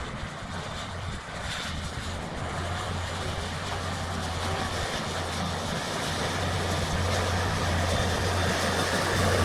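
Tractor engine running steadily under load, growing gradually louder as it comes closer.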